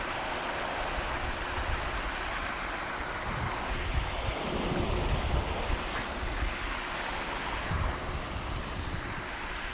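Wind rushing across the microphone with a steady hiss, gusting harder about four seconds in and again near eight seconds, with one faint click about six seconds in.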